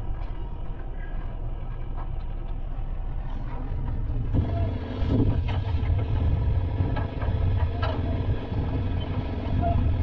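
Low, steady vehicle engine rumble that grows louder about four and a half seconds in, with a few faint clicks.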